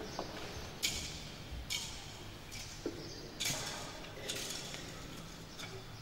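Metal thurible (censer) clinking on its chains in a few sharp strokes about a second apart, as it is swung to incense the Gospel book, over a low hum of church room tone.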